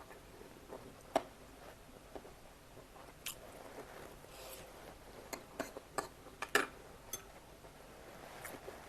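A person chewing and eating close to the microphone: irregular wet mouth clicks and smacks, a few of them sharper and louder.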